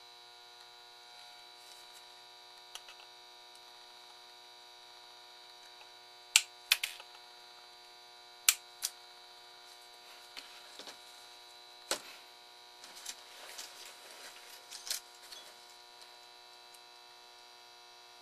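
Steady electrical hum with sharp snips in two close pairs near the middle: flush cutters clipping the leads of a freshly soldered capacitor on a circuit board. Lighter clicks and rustles follow as the board is handled.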